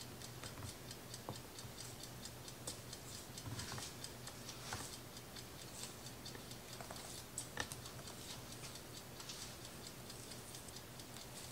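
Faint, even ticking throughout, with a few soft scrapes and taps of a metal spoon spreading mashed potatoes across a metal sheet pan, over a steady low hum.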